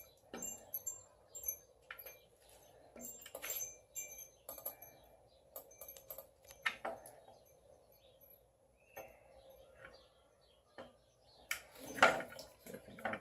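Scattered metallic clinks and taps of hand tools and bolts being handled while an alternator is fitted to an engine, with one louder clank about twelve seconds in.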